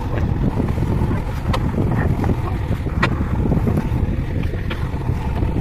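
JCB 3DX backhoe loader's diesel engine running steadily while the loader works, heavily buffeted by wind on the microphone, with a few faint clicks.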